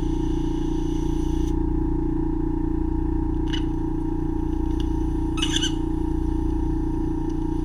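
Ear microsuction unit running with a steady hum as it suctions the ear canal, with brief crackles twice as wax is drawn into the tip.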